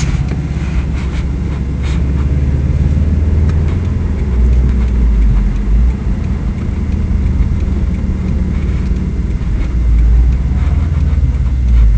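Subaru WRX STI's turbocharged flat-four engine running with a deep, steady low rumble that swells a few times.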